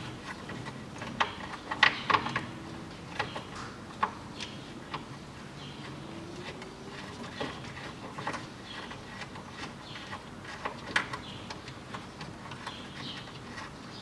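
Irregular clicks and light knocks of plastic and metal as a radiator cooling fan and its shroud are worked into place by hand in a car's engine bay, with a cluster of sharper knocks about two seconds in and another about eleven seconds in.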